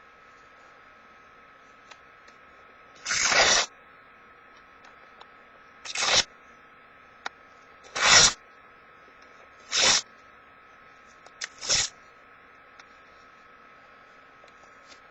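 Paper being torn into strips by hand: five quick rips about two seconds apart, each under a second long, the last one a double rip.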